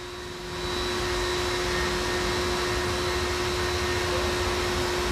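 Steady whooshing machine noise, like an electric fan or blower, that comes up about half a second in and holds level over a constant hum.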